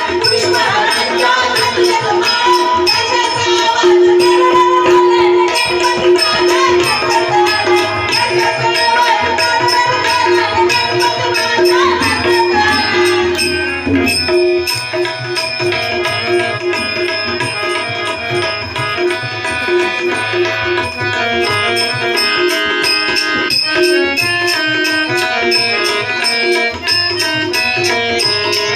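Instrumental break of a Marathi devotional song: a melody line over a steady hand-drum rhythm, with no singing.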